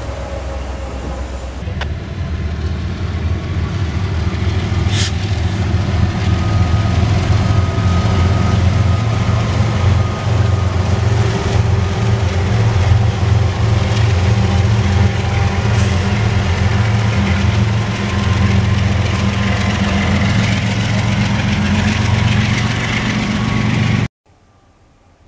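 Freight train passing close by: diesel locomotives running with a deep steady drone, then freight cars rolling past, with a thin high whine and two sharp clanks. The sound cuts off suddenly near the end to a much quieter background.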